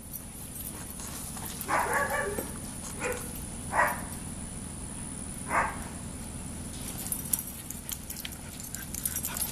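A dog barking: four short barks spread over about four seconds, the first a little longer than the rest.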